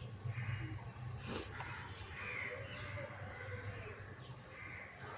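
A few short, harsh bird calls, like crows cawing, over a steady low hum. A single sharp click comes a little over a second in.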